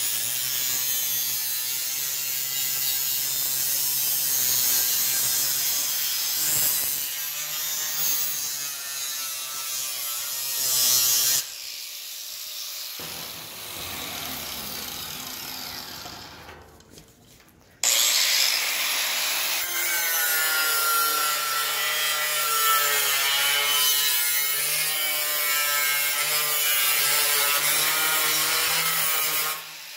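A 4.5-inch angle grinder grinding into the steel top edge of a pickup truck door, its motor pitch wavering under load. The grinding cuts off about eleven seconds in, gives way to a quieter stretch, then starts again loudly at about eighteen seconds and runs until just before the end.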